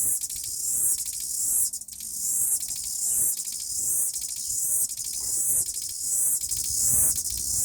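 Cicada singing: a high buzzing song that swells and breaks off in a regular pulse, about once a second.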